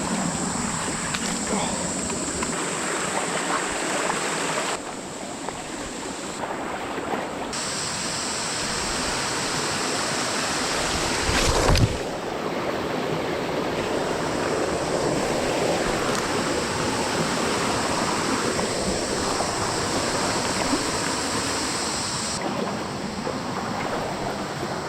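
Creek water rushing and splashing over rocks in a rainforest stream: a steady, noisy wash whose character shifts abruptly a few times, with one sharp knock about twelve seconds in.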